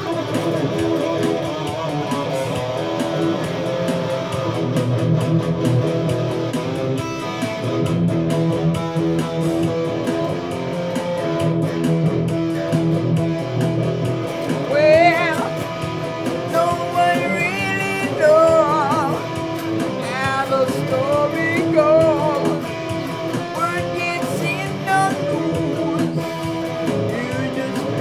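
Electric guitar playing over a Beat Buddy drum-machine rhythm: chords at first, then from about halfway a lead line of bent notes with wide vibrato.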